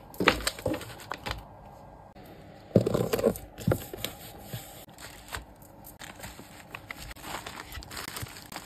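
Paper sticker sheets and packaging handled in a cardboard shipping box: short rustles and crinkles, with a louder burst of handling about three seconds in.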